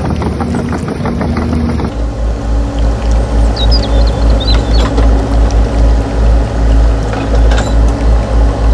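Heavy diesel-style engine sound of RC model excavators. It starts with a quick ticking rhythm, then changes about two seconds in to a deep chugging pulse that repeats a little more than twice a second over a steady hum.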